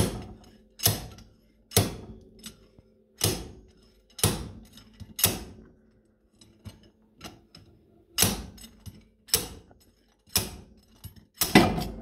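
A 5-pound slide hammer being yanked again and again, its weight striking the stop about once a second with a sharp metallic clank and brief ring, to pull a corroded, rusted-in inner CV cup. There is a short pause with only light clicks partway through, then four more strikes, the last two close together.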